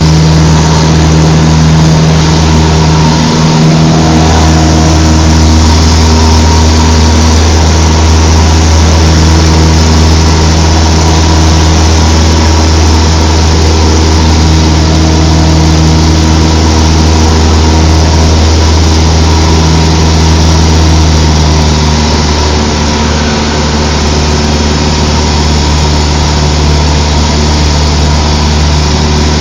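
Cessna 152's four-cylinder Lycoming engine and propeller droning steadily in flight, heard loud from inside the cabin. The sound eases slightly about two-thirds of the way through.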